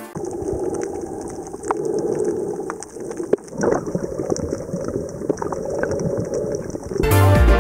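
Water heard through an underwater camera while snorkelling over a coral reef: a muffled, steady wash with scattered clicks and crackles. Background music comes back in near the end.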